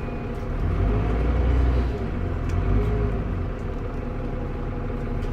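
Diesel engine and drivetrain of a TransBus Trident double-decker bus with a Voith automatic gearbox, running under way with a deep rumble that builds for about three seconds and then eases to a steadier level.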